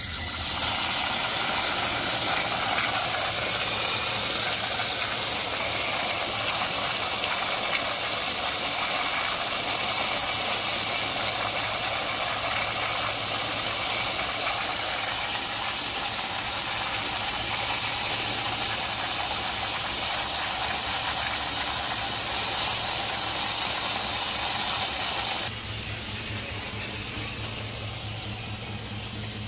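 Water jetting under pressure out of an Ingersoll Rand air compressor tank's opened drain valve, a loud steady hiss that drops to a quieter rush near the end. This is years of condensate that was never drained from the tank.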